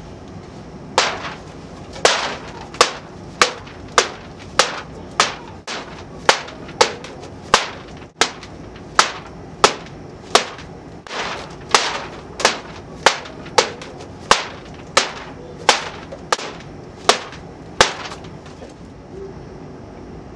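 Repeated sharp chopping knocks, about one and a half a second, stopping shortly before the end: a tree being chopped down.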